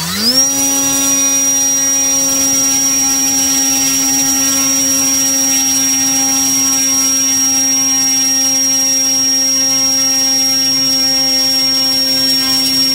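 HeadsUpRC Leopard 960kv brushless motor spinning the E-flite Timber's propeller at full throttle. It winds up to speed in the first moment, then holds as a loud, steady buzzing drone with a thin high whine over it.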